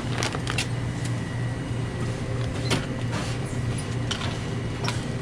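Steady low machine hum with a thin high whine above it, broken by scattered light clicks and knocks: the mechanical background of a small shop at the checkout.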